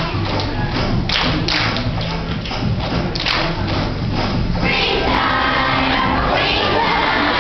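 Children's choir singing along to backing music with a thumping beat. About four and a half seconds in, the children's voices swell into loud shouting and cheering over the music.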